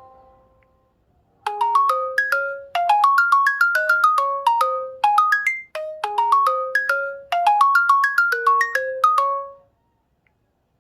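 An LG G5 stock ringtone: short, bright, struck-sounding notes in quick rising runs, repeated phrase after phrase. It starts about a second and a half in and stops shortly before the end.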